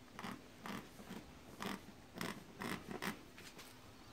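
Short scratching strokes on a floor tile being marked out for cutting, repeated irregularly about twice a second.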